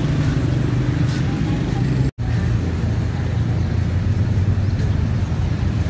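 Steady low rumble of road traffic and vehicle engines passing close by. The sound cuts out completely for an instant about two seconds in.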